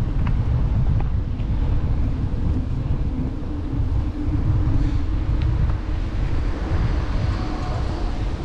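Wind buffeting the microphone of a bicycle riding along a paved road, a steady heavy rumble. A small bus passes the other way in the second half, adding a rising rush.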